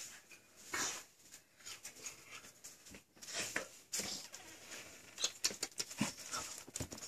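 Golden doodle puppy mouthing and chewing at a person's hair and hands, making irregular soft clicks and rustles.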